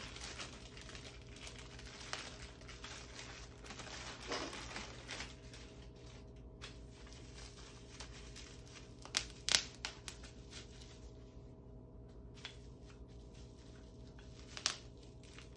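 Packaging crinkling and rustling as cart parts are handled and freed, with a cluster of sharp clicks a little past the middle and another near the end.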